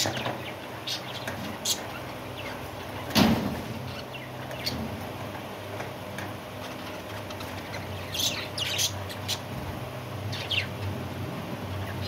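Budgerigars chirping in short, scattered calls, with one louder rustling burst about three seconds in.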